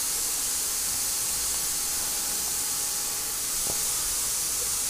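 Steady, even hiss of the recording's background noise, with one faint click about three and a half seconds in.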